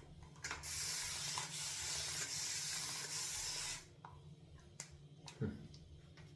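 Boar-bristle shaving brush whisked briskly through shaving soap lather, a steady wet swishing hiss for about three seconds that stops sharply, followed by a couple of faint clicks and a light knock.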